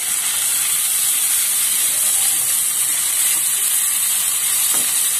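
Dried fish and onions frying in hot oil in a pan, a steady high-pitched sizzle.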